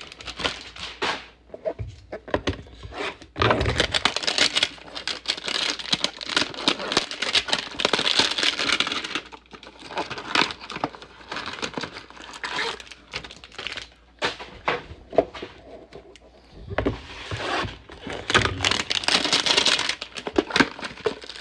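Plastic wrapper of a Select basketball-card hanger pack crinkling and tearing as it is opened by hand, in irregular bursts with sharp crackles. It is loudest from about four to nine seconds in and again near the end.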